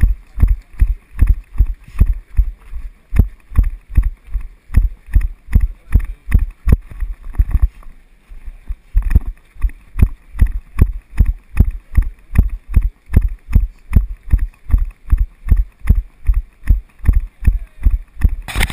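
Steady rhythmic thuds of a runner's strides, about three a second, picked up through a body-worn GoPro action camera that jolts with each footfall. The rhythm breaks briefly about eight seconds in, and a short burst of rushing noise comes near the end.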